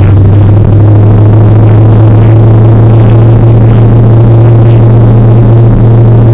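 Car engine heard from inside the car, running at steady revs as one loud, unchanging low drone.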